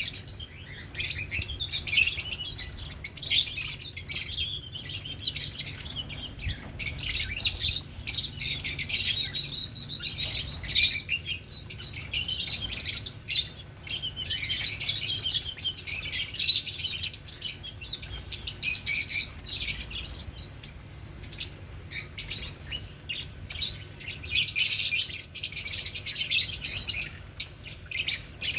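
A group of lovebirds chattering: a dense, continuous stream of high-pitched chirps and squawks overlapping one another.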